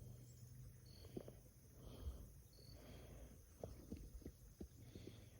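Near silence: a faint low hum with a few soft, scattered clicks.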